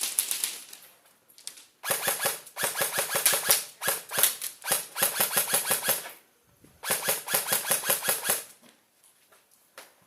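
Airsoft rifle firing on full auto: several bursts of rapid clicking shots, each about a second long, with short pauses between them.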